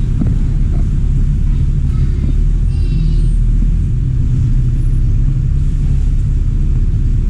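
Steady low rumble of bus engines and traffic at a bus station, with a brief high squeal about three seconds in.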